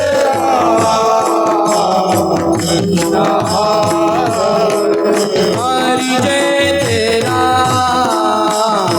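Kirtan singing: a voice sings a gliding devotional melody over a steady drum beat, with repeated bright strikes of cymbals.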